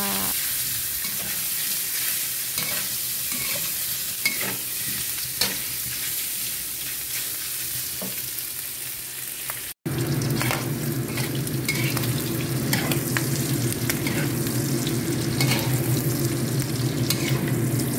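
Pork belly with ginger and garlic sizzling in oil in a steel wok, stirred with a metal spatula that scrapes and knocks against the pan. After a brief dropout near the middle, a steady low hum joins the sizzle.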